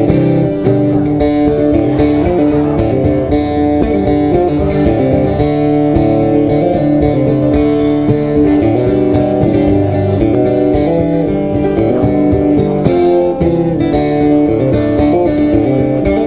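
Acoustic-electric guitar strumming chords in an instrumental passage, with no singing.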